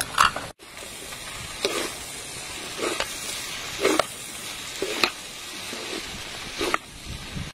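Yellow noodles sizzling as they stir-fry in a large pan, tossed and stirred, with a short scrape of the utensil against the pan about once a second.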